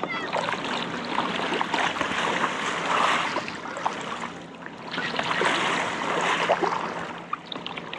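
Water splashing and sloshing as a kayak capsizes and is rolled back upright with the paddle in a fast storm roll. The splashing swells twice, first as the boat goes over and again as it comes up.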